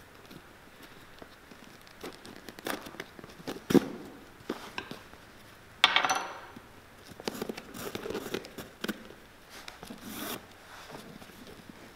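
Hand-stitching a leather welt onto a boot: a sewing awl pushing through the leather and stitching thread being drawn through and pulled tight, in scattered short rasps and zips. The loudest is a sharp zip about six seconds in.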